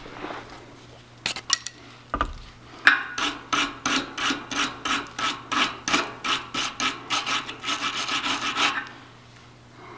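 Hand wire brush scrubbing the threads of a metal pipe fitting in quick, even strokes, about three to four a second, to clean them before the leaking joint is resealed. A few clicks come before the scrubbing starts, about a second in.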